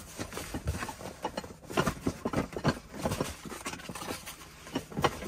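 Cardboard boxes being handled: a string of irregular knocks, taps and scrapes of cardboard as a box is lifted, set down and worked against another box.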